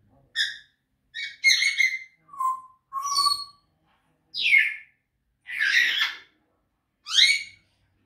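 African grey parrots calling: a string of about eight short whistles and squawks with gaps between them. A couple are held on one pitch, one falls and one near the end rises.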